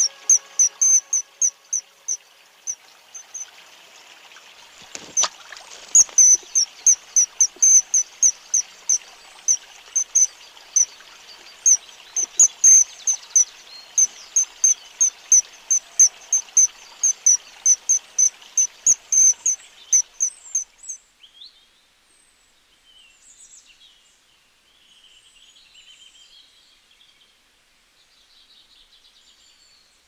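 White-throated kingfisher held in the hand, giving a long run of sharp, high, squeaky calls at about two or three a second, until they stop about two-thirds of the way through.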